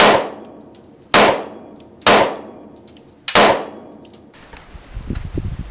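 Four revolver shots about a second apart, each with a long fading echo; the steady pace fits a single-action revolver being cocked by hand between shots.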